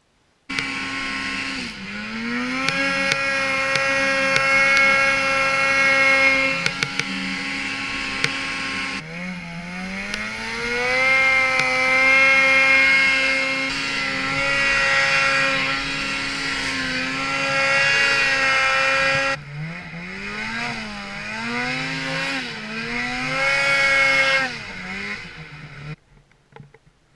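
Snowmobile engines revving hard, the pitch climbing and holding high, then dropping and swooping up and down with the throttle. Three clips are cut together, with abrupt changes about 9 and 19 seconds in, and the sound cuts off near the end.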